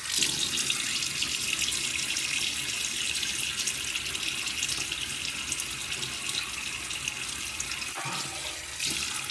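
Bathroom sink faucet running, a steady rush of water into the basin as the face is wetted for a shave; the flow's sound briefly changes about eight seconds in.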